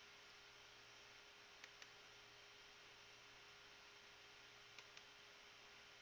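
Near silence with a faint steady electrical hum, broken by two pairs of faint computer mouse clicks, one about one and a half seconds in and one near five seconds.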